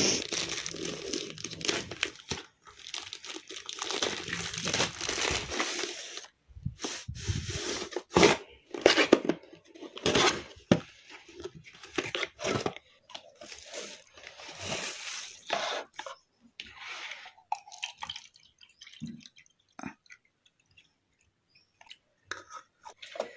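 Packaging being opened and handled: a dense crinkling and tearing rustle, then scattered shorter rustles, clicks and knocks that thin out near the end.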